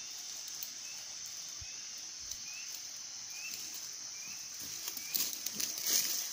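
Steady high-pitched drone of insects. Through the middle a short rising chirp repeats about once a second, and rustling noises start near the end.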